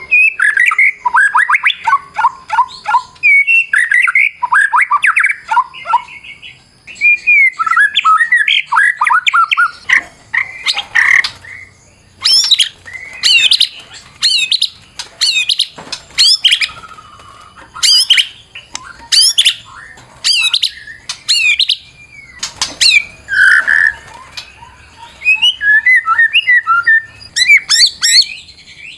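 White-rumped shama singing a loud, highly varied song of quick chirps, whistles and trills. From about twelve seconds in it shifts to runs of sharp, very high sweeping notes in quick groups, then back to mixed phrases near the end.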